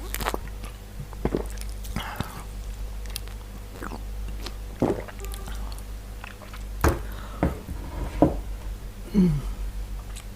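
Close-miked eating: chewing and biting with wet mouth smacks and scattered clicks. A short low sound that drops in pitch comes about nine seconds in.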